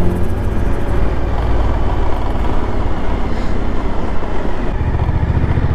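Motorcycle riding along a city street, heard from the bike itself: a steady low engine rumble under rushing wind and road noise, the low rumble growing a little stronger near the end.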